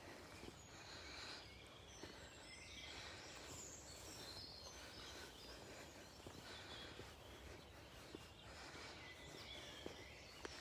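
Faint songbirds singing over quiet outdoor background noise.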